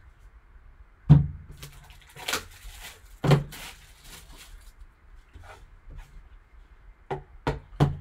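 A shrink-wrapped cardboard card box and a folding knife being handled on a tabletop: a few sharp knocks as the box is set down, with brief plastic rustling, then three quick knocks near the end as the knife is picked up.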